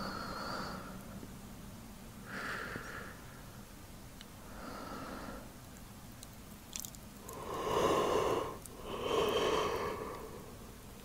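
A man's slow, sleepy breathing close to the microphone. Soft breaths come every two seconds or so, then a deeper, louder breath in and out near the end.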